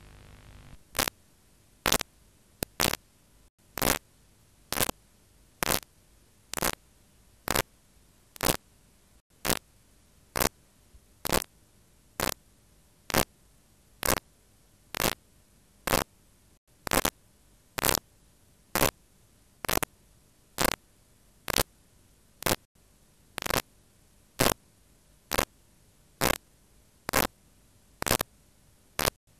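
Sharp, evenly spaced clicks, a little more than one a second, over a steady hiss.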